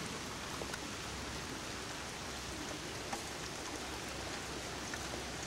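Steady rain falling on standing floodwater and a soaked lawn: an even hiss with a few louder drops ticking now and then.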